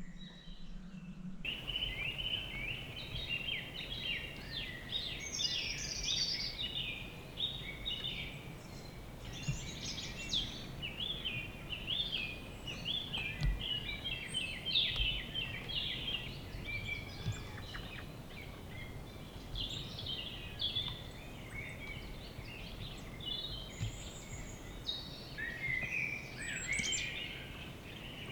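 Several woodland birds singing at once: a dense, overlapping run of short chirps and trills over faint steady background noise, starting abruptly about a second and a half in.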